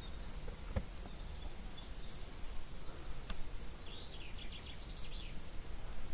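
A small bird chirping and then giving a quick trill of repeated high notes, over a low wind rumble on the microphone, with a couple of faint clicks.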